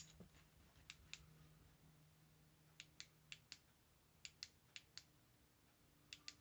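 Faint clicking of a flashlight's push-button switch, pressed repeatedly in small groups of two to four, about a dozen clicks in all, over near silence.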